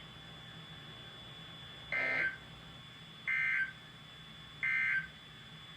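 Three short bursts of NOAA Weather Radio SAME digital data, the end-of-message code that closes a Required Weekly Test, each a rapid two-tone warble under half a second long, about a second apart, heard through a weather radio receiver over faint static.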